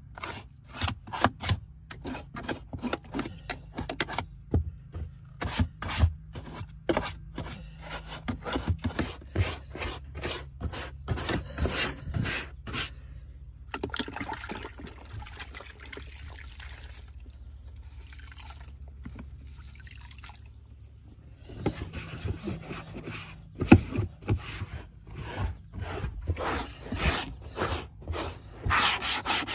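A brush scrubbing a van's floor carpet in quick back-and-forth strokes, easing off for several seconds in the middle before the strokes pick up again, over a low steady hum.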